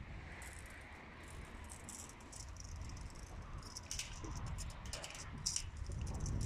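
Light scratching and rattling from a tape measure worked along the side of a steel oil drum, in short irregular strokes that come thicker in the second half.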